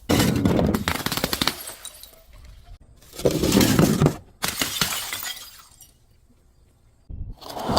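Glass bottle being broken and crushed: several bouts of shattering and crunching glass, with a short quiet pause about six seconds in before the crunching starts again.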